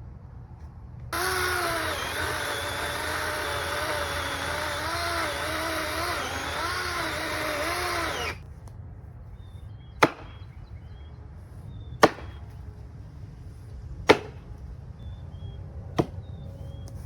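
Electric chainsaw cutting into a log for about seven seconds, its motor pitch dipping and recovering as the chain bites, then stopping. About two seconds later come four sharp axe chops into the wood, about two seconds apart.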